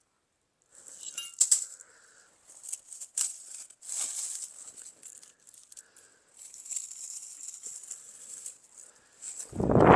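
Old, brittle garden fence material being handled: scattered sharp clicks, rattles and rustling. A loud low rumble comes near the end.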